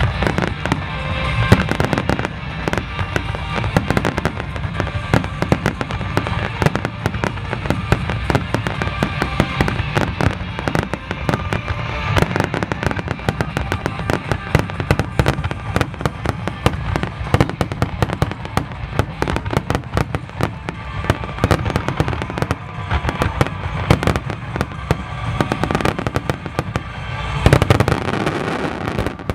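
Aerial fireworks bursting in a rapid, dense barrage of bangs and crackles, with music playing alongside; the barrage swells louder near the end.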